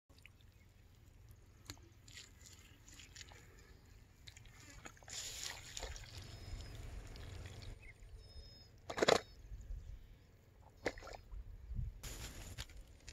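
Quiet pondside ambience with a soft rustling stretch in the middle and a few short, sharp knocks; the loudest knock comes about nine seconds in.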